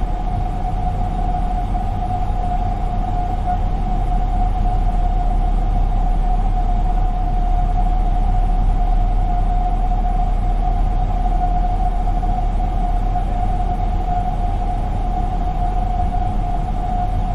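Airliner cabin noise: a steady low rumble and rush of air with a constant whine held at one pitch from the jet engines, swelling slightly and easing off again.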